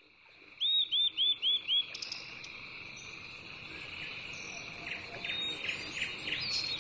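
Outdoor ambience of a steady high insect drone, with a quick run of five chirping calls about a second in and another scattered series of chirps near the end.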